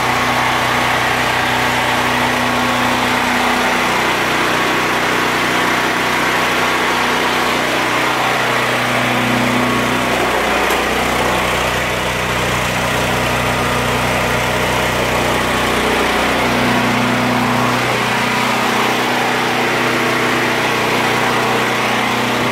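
Engine idling steadily with a low, even hum that shifts slightly in pitch a few times.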